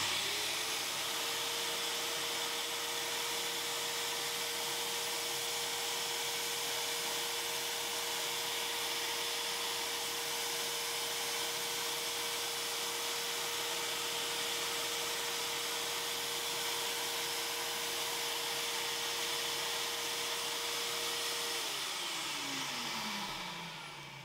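Vacuum cleaner, drawing through a hose to a small ballast-collecting head, switched on and running steadily with a constant whine while it sucks loose model-railway ballast off the track. About 21 seconds in it is switched off and the motor winds down, its whine falling in pitch as the noise fades.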